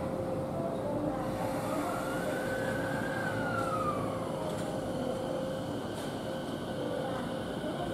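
Electric train at a station platform: a steady electrical hum with a whine that rises and then falls in pitch over a couple of seconds.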